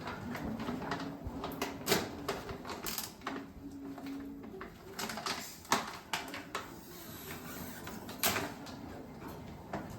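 Kitchen clatter while making chai: irregular clinks and knocks of utensils and pots, several of them sharp.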